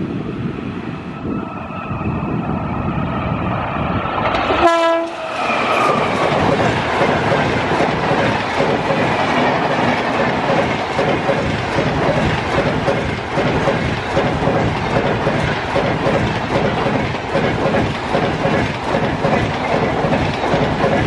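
Indian Railways electric locomotive sounding its horn with a long held tone during the first few seconds. From about five seconds in, a fast train of LHB passenger coaches passes close by: a loud steady rush with the rapid clatter of wheels over rail joints.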